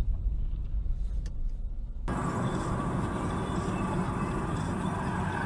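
Car driving, heard from inside the cabin: a low road-and-engine rumble that switches suddenly about two seconds in to a brighter, hissier road noise.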